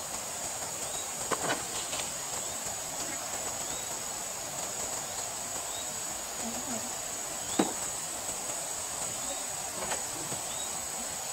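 Steady high-pitched drone of insects in a garden, with small rising chirps about once a second. A few sharp clicks stand out, the loudest about two-thirds of the way through.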